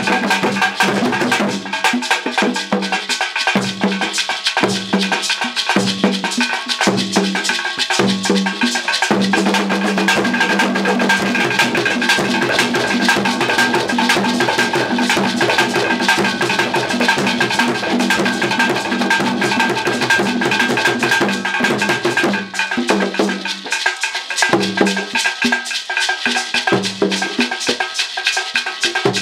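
Fast percussion music of drums and other struck instruments, a dense run of sharp strikes over low drum notes.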